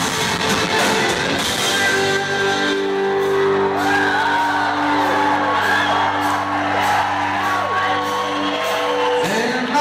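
Grunge rock band playing live in a large arena, loud and full: sustained guitar chords under regular cymbal strokes, with whoops and shouts from the crowd over the music.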